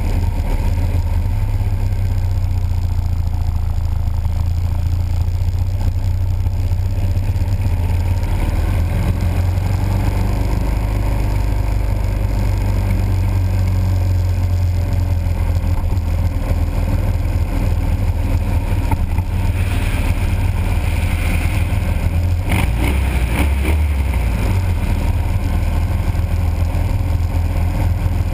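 Motorcycle engine running steadily at road speed, heard from a camera mounted on the bike, with wind and road noise over it. Toward the end the engine note changes briefly.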